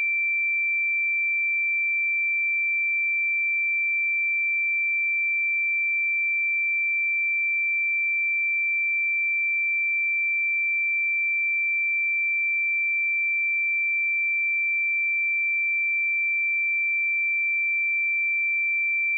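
Pure 2346 Hz sine-wave test tone, one steady high-pitched note held at constant level.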